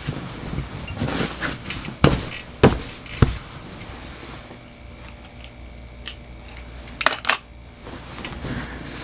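Bedding rustling as a person shifts, turns over and settles under a comforter, with three sharp thumps about two to three seconds in and a quick pair of knocks near the end, over a faint steady hum.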